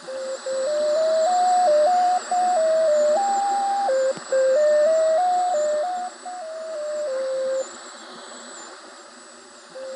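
Electronic tuning signal of a maritime shortwave station, heard over a shortwave receiver: a single tone steps up and down through a short run of quick notes, over steady static hiss with a faint wavering whistle. The tones stop for about two seconds, leaving only hiss, then the same run of notes starts again near the end.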